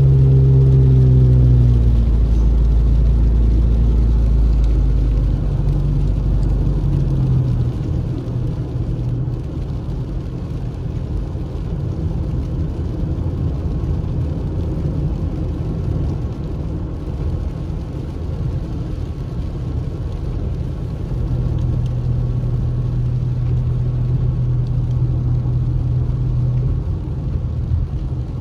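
Car driving on a rain-soaked road, heard from inside the cabin: a steady low engine hum and the hiss of tyres on wet pavement. The hum fades over the first few seconds and swells again about twenty seconds in.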